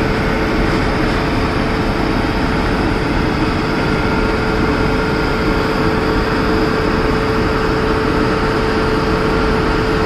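Indian Railways WAP-7 electric locomotive running with a loud, steady hum and a constant mid-pitched tone.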